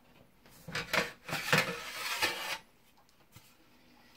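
Hands working at the removable non-stick baking plate of a Krups FDD95D waffle maker: about two seconds of clattering and scraping with a few sharp clicks, starting about half a second in.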